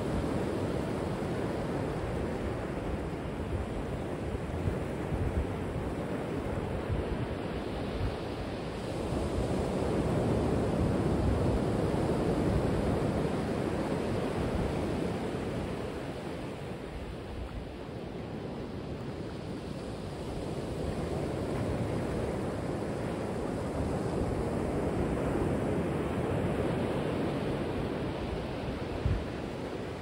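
Ocean surf breaking offshore and washing in over a shallow rocky shore: a continuous rushing wash that swells and eases in slow surges, with one brief thump near the end.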